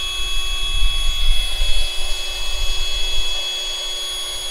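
Wind buffeting the microphone in an uneven low rumble, with a faint steady high-pitched whine underneath.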